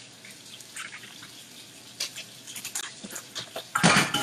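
Small clinks and knocks of metal cookware being handled, then a louder clatter with running water at the kitchen sink near the end.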